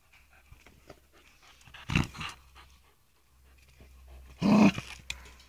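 A Puli dog breathing hard right at the microphone after fetching, with two loud breathy bursts, about two seconds in and again near the end.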